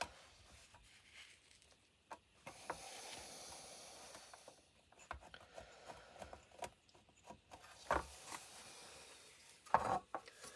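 Handling of a circuit board on a workbench: light clicks and small knocks, with a scraping rub lasting about two seconds a couple of seconds in, and two louder knocks near the end.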